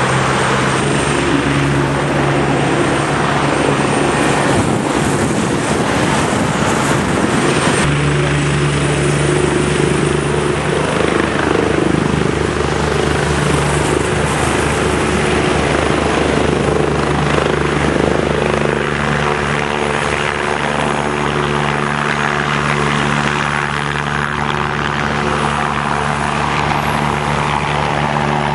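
A Eurocopter EC145 helicopter's rotor and twin turbine engines running at the helipad and lifting off. It is a steady rotor drone, and its tone shifts abruptly about eight seconds in.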